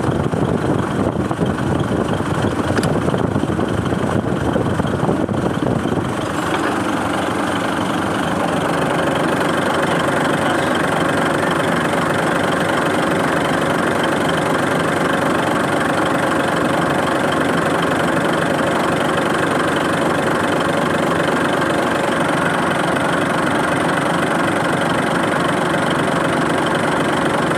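Mitsubishi Fuso 6M70 six-cylinder diesel engine running. The sound changes about six seconds in and settles into a steady idle.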